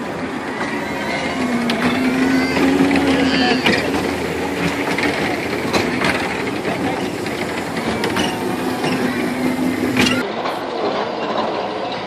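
Kiddie truck ride cars running around their rail track: mechanical clatter and clicks, with a steady hum that comes in twice, amid crowd chatter.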